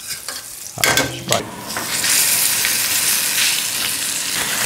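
Beef chuck searing in hot fat in a stainless steel skillet: a short clatter about a second in, then a steady loud sizzle from about two seconds in as the meat lies in the pan.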